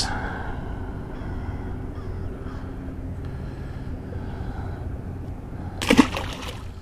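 A small largemouth bass is thrown back into the water and lands with one short splash about six seconds in, over a steady background rumble.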